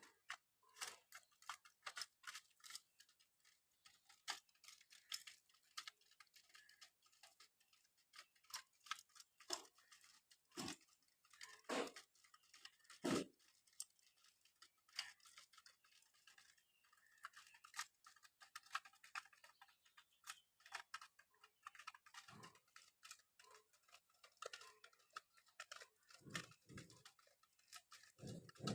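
Pigeons pecking at food, their beaks making many quick, irregular taps and clicks, with a few lower, soft sounds in between.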